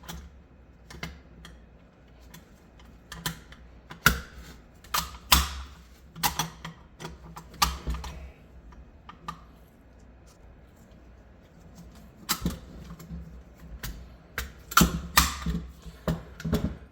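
Irregular sharp metallic clacks and knocks from an SKS rifle's trigger group being slapped and pressed into the stock with the safety on. They come in two busier spells, one through the middle and one near the end.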